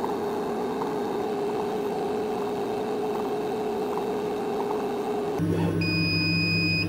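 Laser cutter running while it cuts thin oak sheet: a steady mechanical whirr with a constant hum. About five and a half seconds in the sound changes to a deeper hum with a steady high-pitched whine over it.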